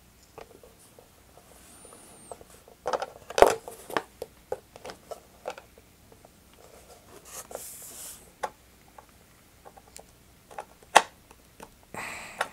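Wing struts of a foam model biplane being pushed and worked into tight mounting points in the wing, giving scattered small clicks, taps and scrapes. A sharper knock comes about three and a half seconds in, another near eleven seconds, and a brief rustle around eight seconds.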